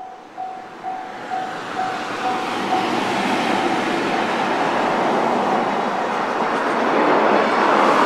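Level crossing warning bell ringing at about two strikes a second as a JR Freight EF210 electric locomotive and its container wagons run over the crossing. From about three seconds in, the loud rumble and clatter of the wagons' wheels on the rails swamps the bell, which goes on faintly underneath.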